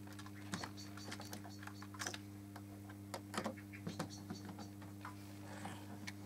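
Light, irregular clicks and taps of a 3D-printed nylon 00-gauge model coach being handled: uncoupled from the coach beside it and lifted off the rails. A steady low hum runs underneath.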